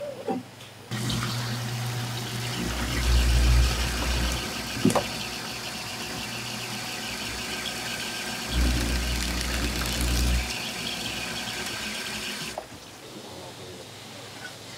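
Electric fish-skinning machine running with a steady motor hum. It grows louder and deeper twice, for about two seconds each time, as fringed blenny fillets are pressed through to strip the skin, then cuts off near the end.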